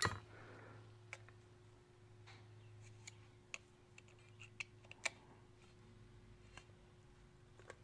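Faint, scattered metallic clicks and ticks as a thin pick tool pries at the steel felt-retaining plate in the bore of a tractor clutch pulley, with a faint steady hum underneath.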